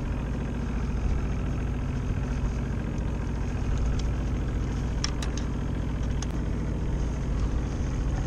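Boat's inboard engine running steadily under load from a high-output alternator charging the batteries. A few light metallic clicks from hand work on the outboard's carburetor linkage come in the middle.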